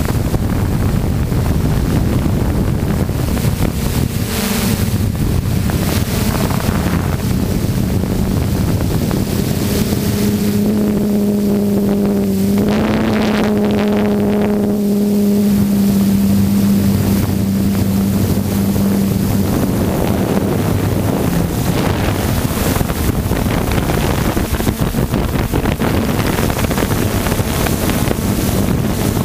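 Electric motors and propellers of a radio-controlled aircraft in flight, heard from its onboard camera: a steady drone with wind rushing over the microphone. A pitched hum stands out clearly for several seconds in the middle.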